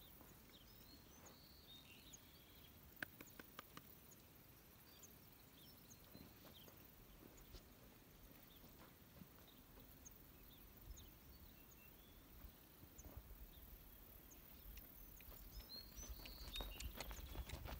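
Near-silent outdoor ambience with faint, scattered bird chirps and a few soft clicks about three seconds in. A low rumble builds near the end.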